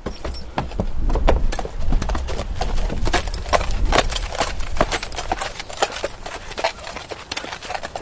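A horse walking, its hooves clip-clopping in an uneven run of sharp strikes, with a low rumble underneath.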